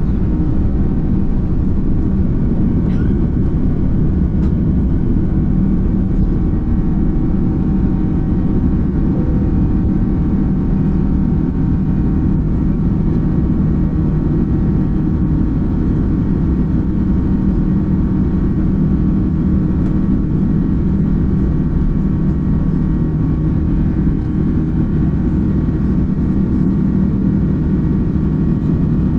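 Rolls-Royce Trent 7000 turbofan engines of an Airbus A330-900neo at takeoff thrust, heard from a window seat inside the cabin: a loud, steady engine noise with several steady humming tones, through the end of the takeoff roll and the initial climb.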